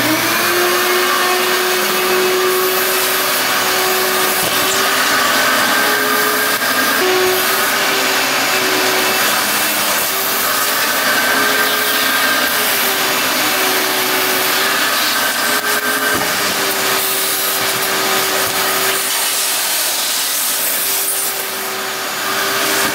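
Vacuum cleaner running continuously, its hose sucking mouse-nest debris out of a rusty motorcycle battery tray: a steady rushing noise with a whine whose pitch wavers slightly.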